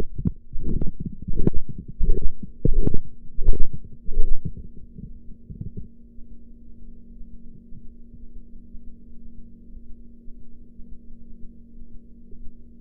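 Korotkoff sounds heard through a stethoscope over the arm during blood pressure cuff deflation: rhythmic thumps about every 0.7 seconds that grow louder, then fade and stop around six seconds in, the point a listener reads as the diastolic pressure. A steady low hum of background noise remains after the thumps end.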